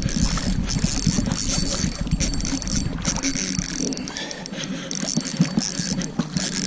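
Spinning reel clicking fast as it is worked while playing a hooked king salmon.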